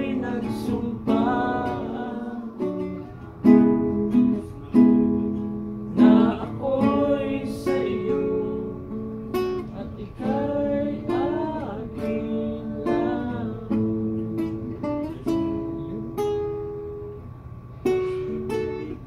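A man singing while strumming an acoustic guitar, with a strong strummed chord every few seconds under the sung melody.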